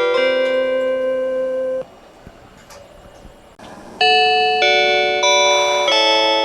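In-car chime of the Joban Line limited express Hitachi: a melody of bell-like ringing notes that ends about two seconds in. After a short pause with only faint hiss, the chime starts again at about four seconds.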